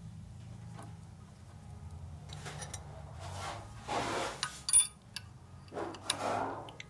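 Small metal engine parts being handled on a steel workbench: rustling and scraping with a sharp metallic clink about two-thirds of the way through, over a low steady hum.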